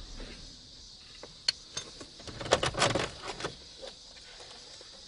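A series of sharp clicks and knocks as centre-console trim pieces around a car's gear shifter are handled and pulled loose, with the densest, loudest cluster about two and a half to three seconds in.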